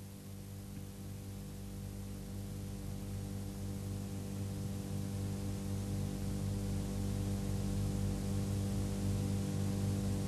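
Steady electrical mains hum: a low drone with evenly spaced overtones that slowly grows louder.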